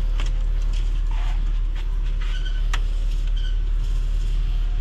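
A steady low machine hum with a fine, even pulse, likely a motor running in the workshop, with a few light metallic clicks and clinks of tools being handled over it.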